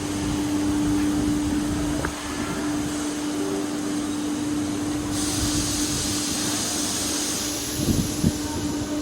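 Hydraulic high-frequency plastic welding machine running with a steady hum. About five seconds in, a high hiss joins for about two seconds, and a few knocks come near the end.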